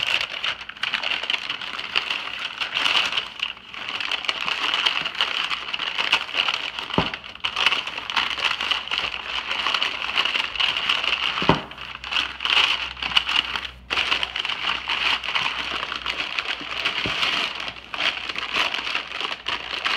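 Paper bags crinkling and rustling as a pan is wrapped in them, with a couple of sharp clicks partway through.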